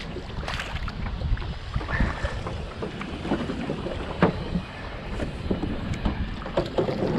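Wind buffeting the microphone in a low rumbling rush, with scattered sharp knocks, the clearest about four seconds in.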